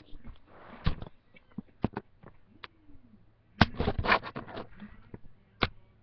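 Handling noise close to the microphone: scattered clicks and knocks with scrapes and rustling. A short rustle comes just before one second in, and a louder cluster of knocks and rustling comes a little past halfway.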